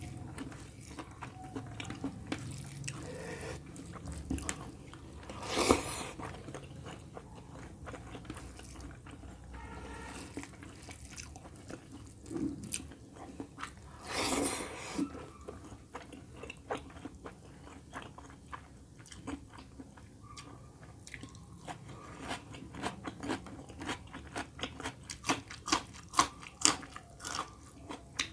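Close-miked chewing and wet mouth sounds of a person eating rice and chicken curry by hand, with two longer, louder swells of noise. Crisp crunching bites come thick and fast near the end as a raw green chilli is bitten.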